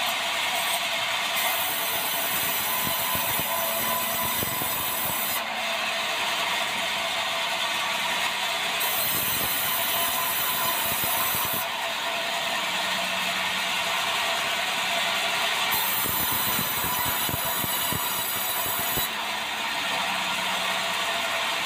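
Sawmill band saw running and ripping a debarked meranti board that is fed over steel rollers: a steady loud mechanical noise with clattering. Its highest part cuts in and out every three to four seconds.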